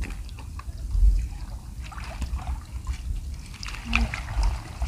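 Water trickling and dripping with faint scattered ticks, over an uneven low rumble of wind on the microphone.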